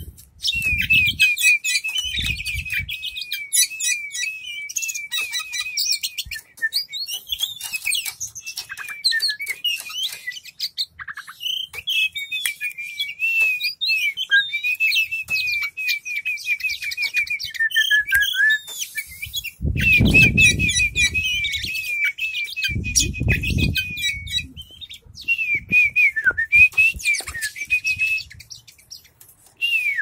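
Oriental magpie-robin singing a long, varied song of rapid chirps, trills and whistled phrases that runs on almost without pause. A few dull low thumps come twice near the start and twice about two-thirds of the way through.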